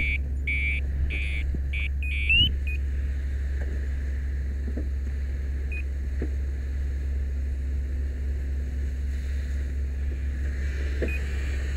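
Steady low drone of a fire engine's engine running its pump, under the hiss of a hose stream. An electronic beeping repeats a few times a second and stops about two seconds in.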